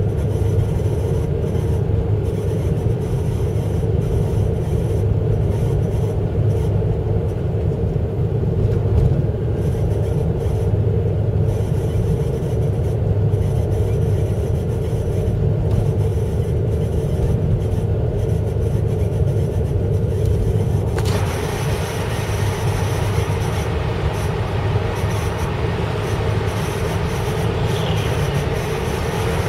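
Honda Civic (FD2) running with a steady low rumble and a held drone: the abnormal noise the car is making. About 21 seconds in, a higher hiss joins it suddenly and stays.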